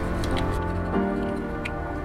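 Background music of held, steady notes that change about a second in, with a couple of short light clicks from the plastic leg halves of a model kit being handled.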